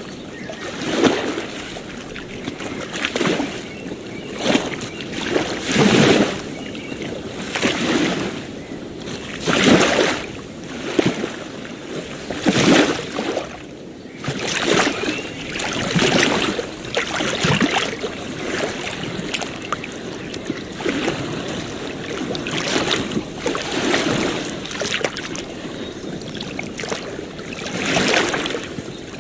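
Small ocean waves lapping and washing in, one swell every couple of seconds over a steady hiss of water.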